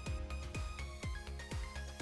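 Background music with a steady kick-drum beat, about two beats a second, under held synth-like notes.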